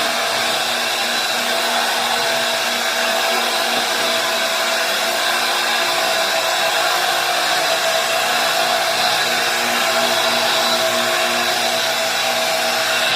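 Carpet extractor running steadily during hot-water extraction of carpet: an even motor rush with a constant whine.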